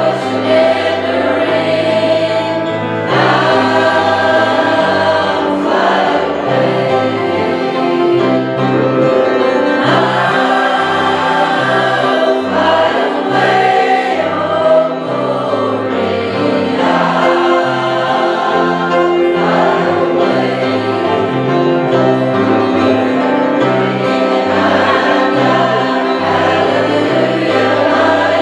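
A gospel choir singing with instrumental accompaniment and a steady bass line.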